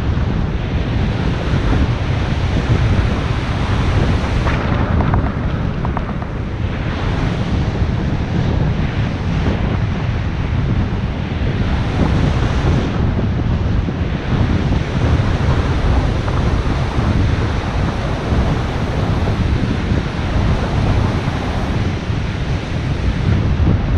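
Wind buffeting an action camera's microphone on a moving bicycle, a steady low rumble, mixed with sea surf breaking and washing up the shore.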